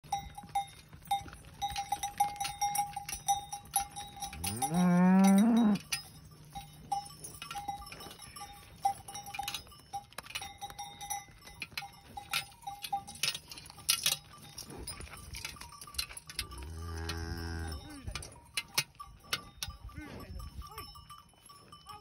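Cowbells clanking irregularly as the cows move about, with one cow letting out a loud moo that rises in pitch about four and a half seconds in, and a second, lower moo at about seventeen seconds.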